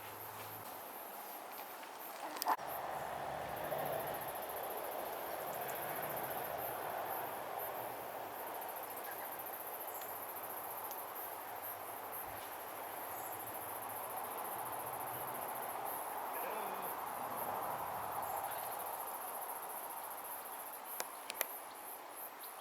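Insects trilling steadily at a very high pitch over a soft outdoor hiss, with a couple of sharp clicks, one about two seconds in and another near the end.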